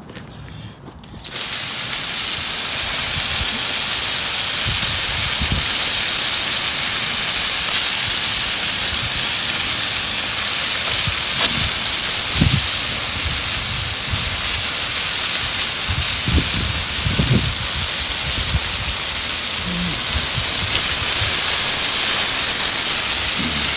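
Garden hose spraying a hard jet of water onto a chainsaw chain and bar, rinsing off coil cleaner and loosened wood resin. It starts suddenly about a second in as a loud, steady hiss.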